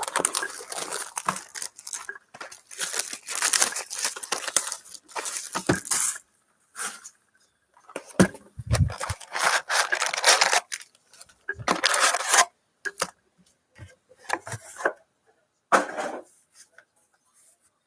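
Trading-card packaging for Panini Contenders football cards being torn open: crinkly plastic and foil wrapper ripping in several irregular spells with short pauses between them, and a low thump about nine seconds in.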